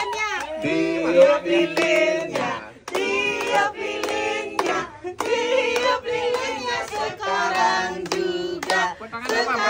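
A small group singing a birthday song together and clapping along in time.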